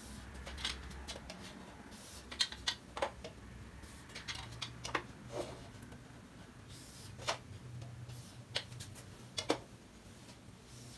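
Marker and plastic ruler on a whiteboard: faint, irregular short scrapes as the marker draws straight lines along the ruler, and light taps as the ruler is set against the board.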